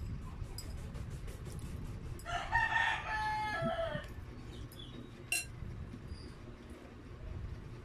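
A rooster crows once, about two seconds in, a call of under two seconds that drops in pitch at its end. A little later a fork clinks as it is laid into a glass bowl.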